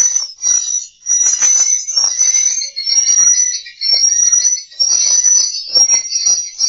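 Recorded swiftlet lure sound: dense chirping and twittering of edible-nest swiftlets over a high, steady whistle tone that repeats about every half second to two-thirds of a second. This is the kind of call and roosting sound played to draw swiftlets in and make them stay.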